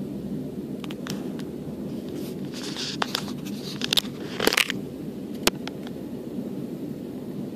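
Steady low rumble of a moving train heard from inside the carriage, with a scattered run of sharp clicks and short scraping crackles between about one and five and a half seconds in.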